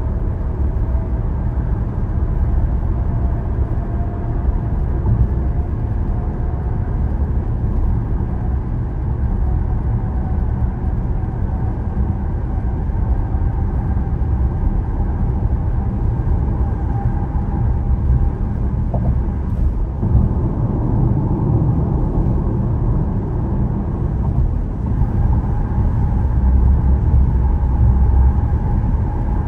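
Steady road noise of a vehicle cruising on a highway: a low, even rumble of tyres and engine with a faint tone that slowly rises in pitch.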